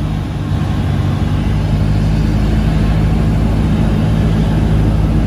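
Cessna 172's four-cylinder piston engine and propeller droning steadily in flight, heard from inside the cabin.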